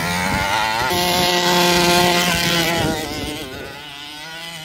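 Petrol two-stroke engine of a large-scale RC monster truck revving up and running at speed as the truck drives off across grass, its carburettor just leaned out half a turn. The note fades from about three seconds in as the truck moves away.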